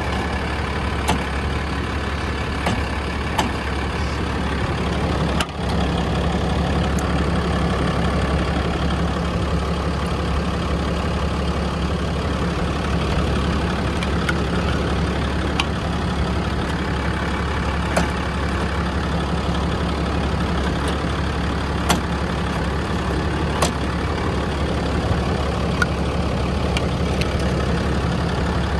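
Ram 5500's 6.7-litre Cummins diesel idling steadily, with a scattering of short sharp clicks over it.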